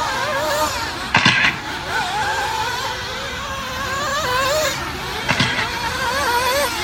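Several nitro RC buggies' small two-stroke glow engines buzzing around the track, their pitch rising and falling as they throttle up and back off. Two short, louder bursts stand out, about a second in and a little after five seconds.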